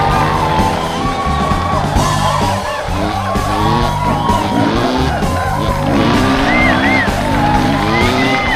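Background music with a steady, repeating bass line.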